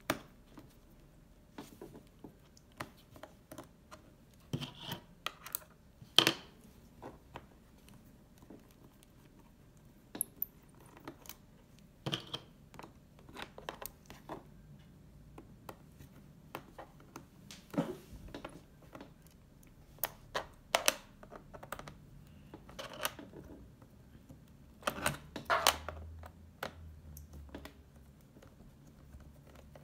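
Scattered clicks, taps and light scrapes of fingers and small tools on a laptop's plastic underside as a screw-cover strip is pried off and its small screws are handled.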